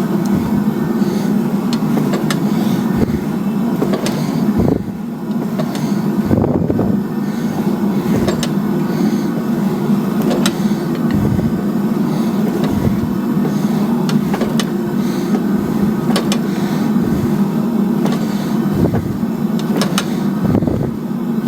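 A forge running with a steady low rumble, with scattered sharp metallic clicks and knocks on top.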